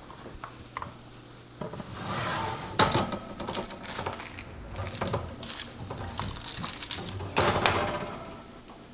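A metal roasting pan and the oven rack sliding and clanking as the pan is pulled out of a wall oven. The loudest clank comes about three seconds in, with smaller knocks and a longer scrape near the end.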